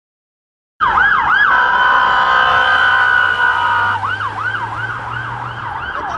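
Police van siren sounding as the van passes, starting suddenly about a second in. It gives a couple of rising-and-falling wails, holds a steady tone for a few seconds, then switches to a fast yelp of about two sweeps a second.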